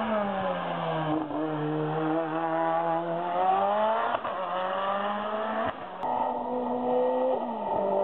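Race car engine revving hard under acceleration, its pitch climbing steadily and dropping sharply at gear changes, with abrupt breaks where the sound cuts from one pass to another.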